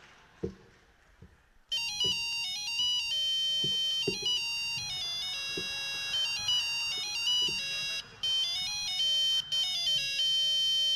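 Mobile-phone ringtone: a fast, bright electronic melody of stepped notes that starts abruptly about two seconds in and plays with a couple of brief breaks until it cuts off at the end. A few soft thumps come before it.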